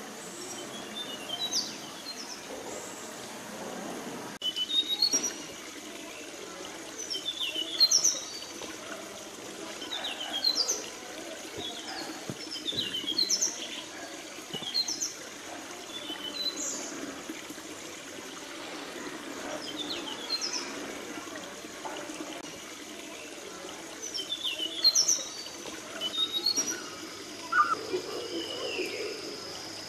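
Forest birds calling: clusters of short, high chirps and whistles every two to three seconds over a steady low background hiss.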